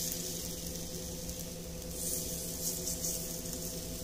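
Appe batter sizzling softly as spoonfuls drop into the hot, oiled cavities of an appe pan, over a steady low hum.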